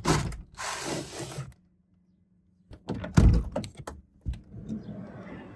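A few knocks and thuds in a short cluster, after a burst of rustling handling noise and a brief silence.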